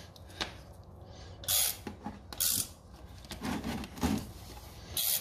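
A 3/8-inch socket ratchet on an extension clicking in a few short bursts on its back-strokes, working the mower engine's oil drain plug loose.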